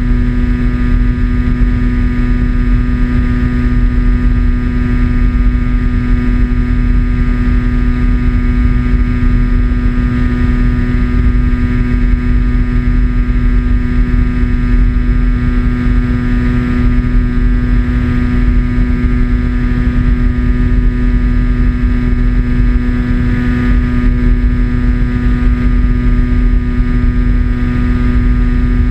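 A radio-controlled model airplane's motor and propeller drone at a constant steady pitch in cruise, heard from its onboard camera with heavy wind rush over the microphone.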